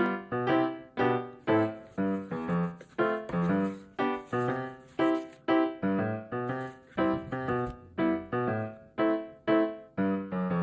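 Background music: a simple keyboard melody, notes struck about twice a second, each one fading away.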